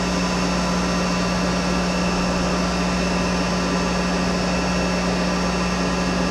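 Monarch 10EE toolmaker's lathe running steadily under its variable-speed DC drive, a constant hum with a strong low tone, while the tool lightly breaks the sharp edges of the turned part.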